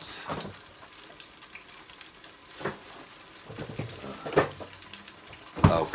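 Whiting fish deep-frying in oil in a lidded pot, a steady sizzle, broken by a few sharp clinks of a utensil against a bowl, the loudest near the end.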